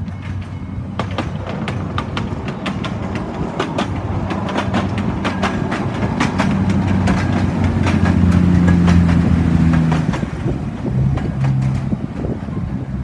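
Miniature passenger train passing close by: the locomotive's engine drones, loudest as it goes by about eight seconds in and changing pitch soon after, while the wheels click over the rail joints.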